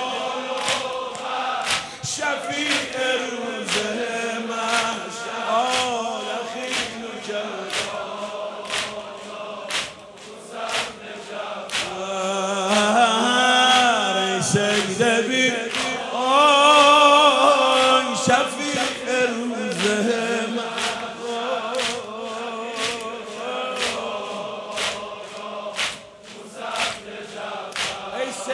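A large crowd of male mourners chanting a noheh refrain in unison, over a steady beat of sharp slaps from rhythmic chest-beating (sineh-zani).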